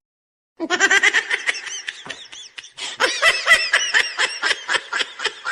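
Laughter: after a brief silence, a rapid, high-pitched run of short laughs starts about half a second in and keeps going.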